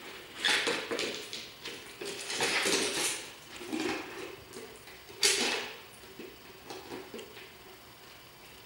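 Empty plastic peanut butter jar scraping and knocking on a concrete floor as a malamute puppy noses and paws at it, in several short bursts with the sharpest about five seconds in, then quieter scuffling near the end.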